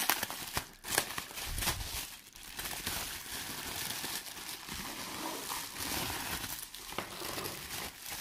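Plastic bubble wrap crinkling and rustling as it is handled and unfolded to unwrap a model, a continuous crackly rustle with many small sharp crackles.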